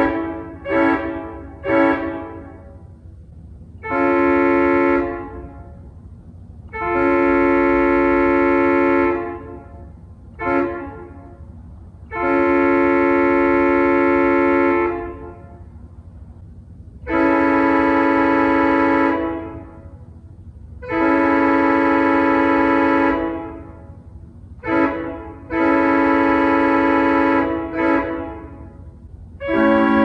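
Pipe organ playing sustained chords that imitate Nathan Airchime train horns: a five-chime P5 chord, changing about halfway to a three-chime P3 chord. The chords sound as horn blasts: two short ones, then long, long, short, long (the grade-crossing signal), played twice, each blast dying away briefly when released.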